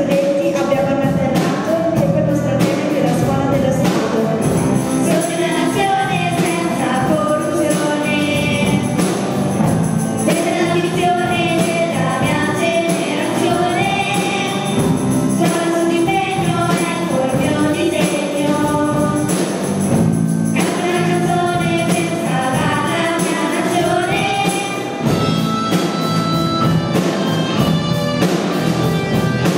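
A girl singing a song into a microphone over a band with electric guitars. Near the end the singing stops and an electric guitar carries the melody.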